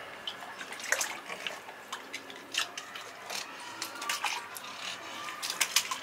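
Irregular wet splashes and sharp clicks of water slopping in a plastic bucket as a cormorant gulps down a large fish.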